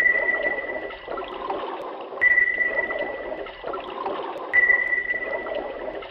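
Sonar-style ping sounding three times, about every two and a quarter seconds: a single steady high tone that starts sharply and fades over about two seconds, over a watery background wash.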